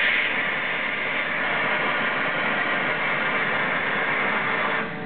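Steady, loud hiss-like running noise of industrial machinery in a factory hall, even and without rhythm, dipping briefly near the end.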